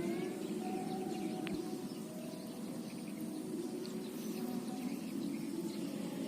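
Steady low outdoor background noise with faint, short bird chirps scattered through it.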